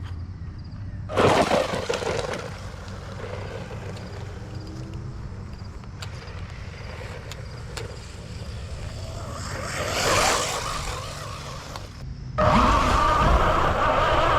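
Electric RC monster truck driving, its tyres rolling and scraping over the ground with a motor whine. It surges loudly about a second in, and near the end a louder, steady high whine takes over.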